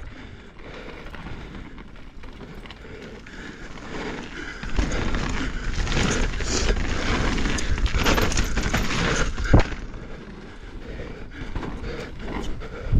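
A Norco Fluid mountain bike riding fast down a dirt trail: tyres rolling over dirt and gravel, and the bike rattling and knocking over bumps. It is louder and rougher through the middle few seconds, ending in one sharp knock.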